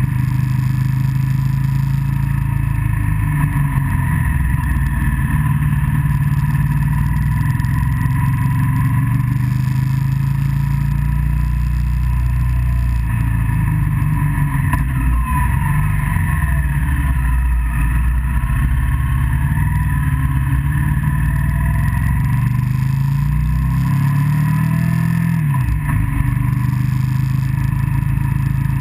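Motorcycle engine pulling steadily along a mountain road, with wind rushing over the rider's microphone. A few seconds before the end the engine note drops and then climbs again.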